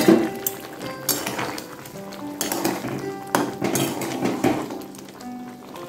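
Metal spatula clanking and scraping against a kadai as a simmering curry is stirred, with several separate knocks spread through. Background music with steady held notes plays underneath.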